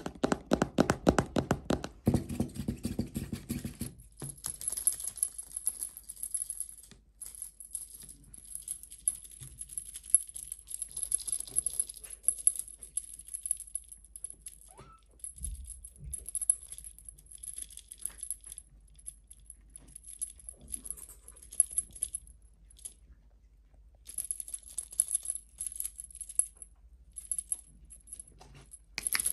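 Small rattling and jingling, like a cat toy being shaken, coming and going in short bouts with a thin high ringing. For about the first four seconds there is a low buzzing sound.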